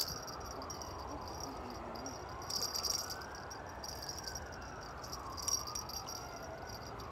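Spinning reel being wound as a hooked bream is played in, giving short bursts of high, rattling clicks. A faint tone slowly rises and falls underneath.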